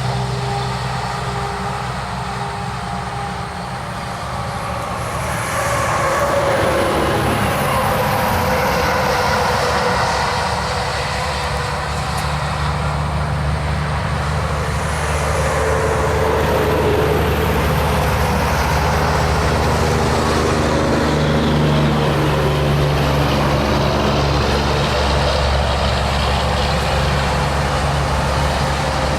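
Loram RG308 rail grinder at work: a steady diesel drone under a broad grinding hiss, growing louder about five seconds in.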